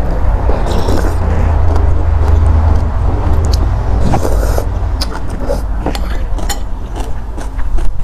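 Eating sounds close to a clip-on microphone: a person chewing noodles and sipping spicy noodle soup from a spoon about four seconds in, with small mouth clicks through the second half. Underneath is a loud low rumble that is strongest in the first three seconds.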